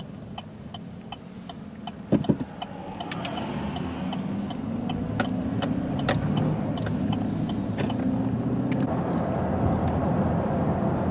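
Car interior while driving: engine and road noise grow louder from about two seconds in as the car picks up speed, after a short thump. A light, regular ticking, about two a second, runs through it.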